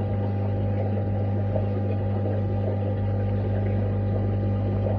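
Steady low hum of fish-room aquarium equipment, with a faint bubbling of water underneath.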